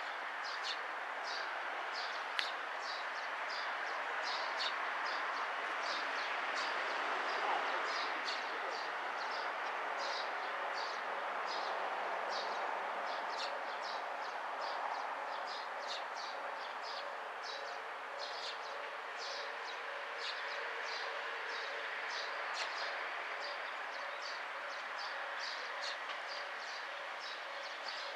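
Single diesel railcar approaching slowly, its engine a steady wash of noise under outdoor ambience. Short high chirps repeat about twice a second throughout.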